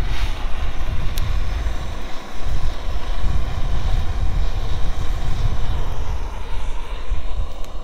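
Wind buffeting the microphone in an uneven, gusty rumble, with a broad rush of wind through tree leaves.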